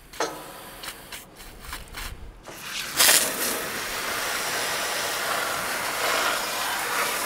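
Water from a garden hose spraying and splashing over a tractor battery and its metal compartment, rinsing battery cleaner off the terminals. It starts suddenly about three seconds in and then runs steadily, after a few faint knocks.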